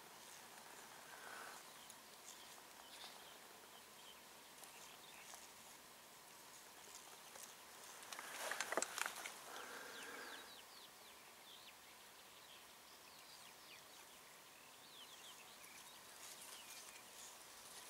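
Faint outdoor quiet with scattered short, high bird chirps, a run of them near the end. About eight seconds in comes a brief louder crackling rustle lasting about two seconds.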